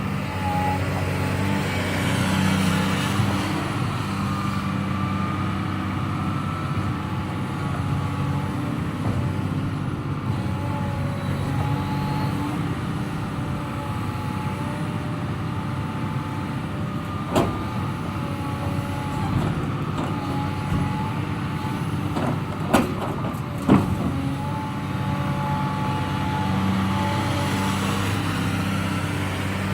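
Excavator's diesel engine running under load while it works its hydraulics to load logs, with a whine that bends up and down in pitch. Three sharp knocks stand out about two-thirds of the way through.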